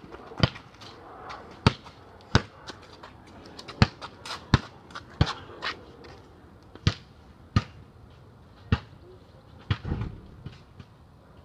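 A basketball being dribbled, bouncing off the court about once a second in an uneven rhythm, with a duller, heavier thud near the end.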